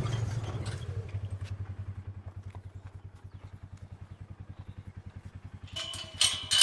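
Utility vehicle's engine idling with an even, rapid pulse, growing fainter. Near the end, a gate chain rattles and clinks against a steel pipe gate.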